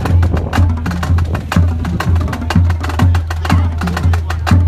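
Marching band playing in the street: a drum line with snare drums keeping a steady march beat, a low thump about twice a second, with short low brass notes from the sousaphone and horns.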